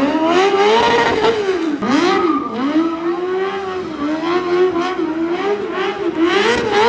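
Sport motorcycle engine revving hard over and over, its pitch rising and falling every second or so, during a burnout with the rear tyre spinning and smoking.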